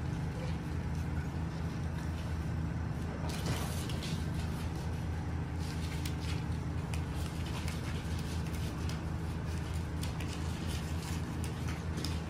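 Steady low mechanical hum, with scattered light clicks and taps over it.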